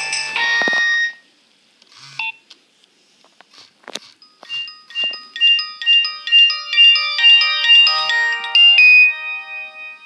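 Nokia 2600 mobile phone playing ringtone previews through its small speaker. One electronic melody cuts off about a second in, and after a short pause a new ringtone begins, with several notes at once, running for about four seconds before it fades near the end.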